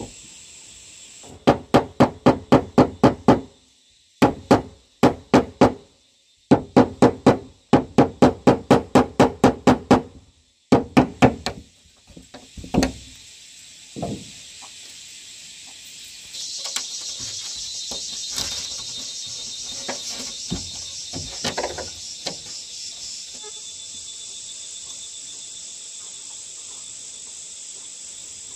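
Hammer driving nails in four quick runs of ringing blows, about four a second, through the first twelve seconds, with a few single knocks after. Insects buzzing steadily throughout, louder for several seconds in the second half.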